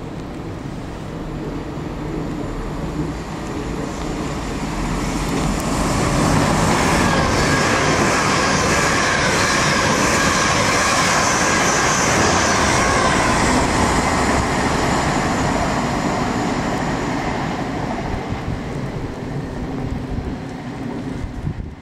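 Great Western Railway Hitachi Intercity Express Train running through the station at speed without stopping: a rush of wheel-on-rail rumble and air noise that swells as it approaches, is loudest for several seconds as the coaches pass, then fades as it draws away.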